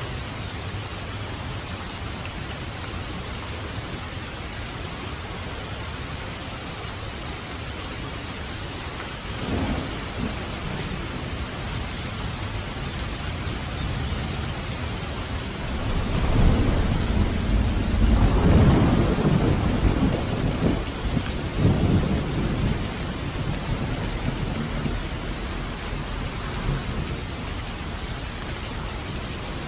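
Steady rain hiss, with a thunder rumble about nine seconds in and a longer, louder rolling peal of thunder from about sixteen to twenty-two seconds in that fades out.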